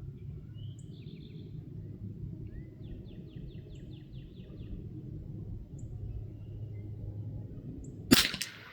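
A single sharp .22 LR rifle shot from a Hatsan Escort about eight seconds in, followed a fraction of a second later by a weaker click. Before it, a bird chirps a couple of short, rapid trills over a low steady background.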